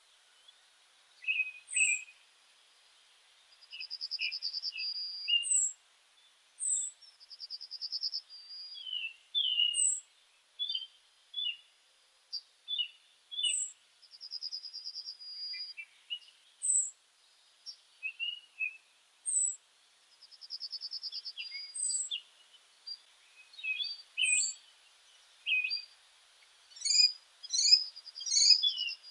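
Songbirds chirping and calling: a short, high falling note repeats every couple of seconds, a buzzy trill recurs every few seconds, and assorted lower chirps fill the gaps. The calls grow busier and overlap near the end.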